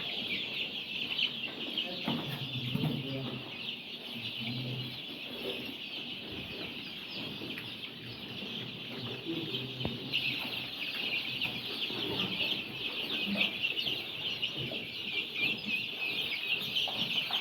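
A large flock of two-week-old layer chicks peeping, a dense and continuous chorus of many high, short calls.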